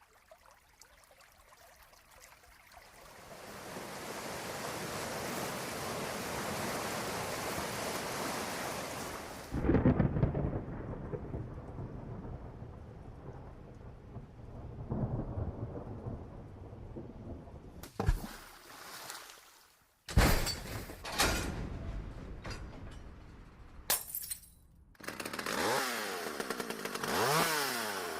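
A run of sound effects. Rain hiss builds up over the first several seconds, then a thunderclap breaks about ten seconds in and rumbles away. After a few short, abruptly cut sounds, a chainsaw revs up and down near the end.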